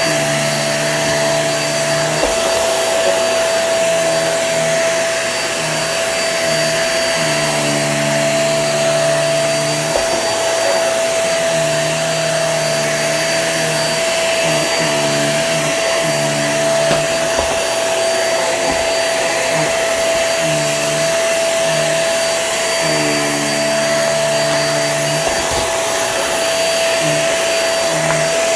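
Hoover React QuickLift bagless upright vacuum running on carpet, with a steady high-pitched motor whine. Under the whine, a lower hum changes pitch every second or two as the load on the machine shifts.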